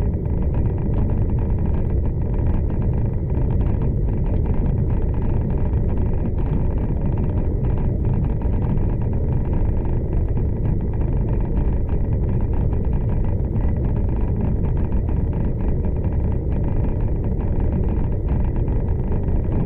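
Steady low rumble of a V/Line passenger train running along the track, heard from inside the carriage.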